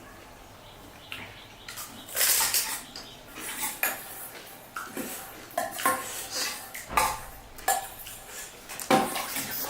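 Dishes and utensils clinking and clattering in a string of short, irregular knocks as pani puri is served and eaten.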